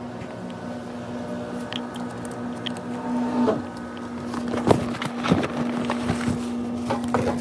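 Clear plastic tote bag handled at a glass-door refrigerator: irregular crinkling and small knocks start about three and a half seconds in, over a steady low hum.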